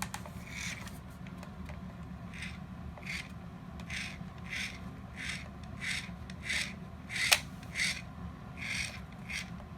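The plastic disc shooter mechanism of a Mr. Robot toy being worked by hand. Its lever and parts give short scraping strokes, about one and a half a second, with one sharp click a little after seven seconds in. The mechanism only works one way.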